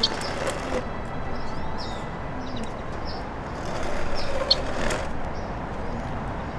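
Outdoor street ambience: a steady rumble of traffic with short bird chirps now and then, and one sharp click about four and a half seconds in.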